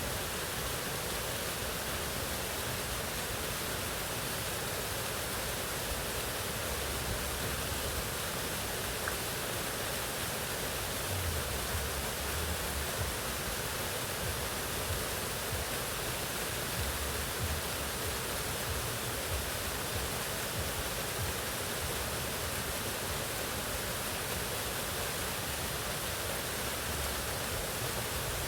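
Mountain waterfall: water falling and rushing in a steady, even hiss, with brief low swells here and there.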